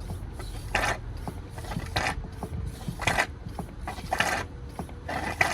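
Hand-operated oil extractor pump being stroked, about one stroke a second, five strokes in all, each a short rasping rush, drawing thick old oil out of the mower engine.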